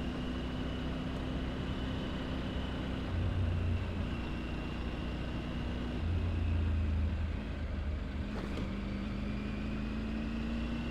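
Triumph Tiger 900 Rally Pro's three-cylinder engine running on the move, with wind and road noise. It grows louder twice, about three seconds in and again around six seconds.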